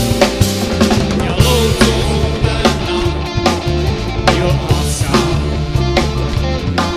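Rock band playing an instrumental passage: a drum kit beat with regular hits over a bass line that moves in steps, no vocals.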